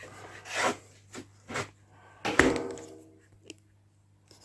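Small cast bronze anvil being handled and set down on a scale: a few soft knocks and rubs, then a loud clunk about two and a half seconds in with a short ring.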